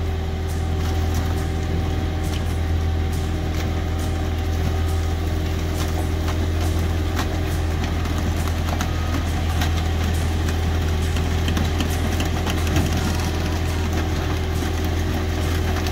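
Mobile car crusher's engine running steadily, with a deep hum, as its hydraulic lid presses down on a stack of cars. Scattered cracks and pops come through as the cars give way.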